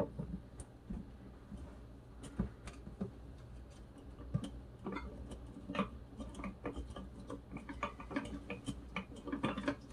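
Faint, irregular small clicks and ticks of handling at a soldering station: the iron set into its stand, then solder wire pulled off its spool, over a low steady hum.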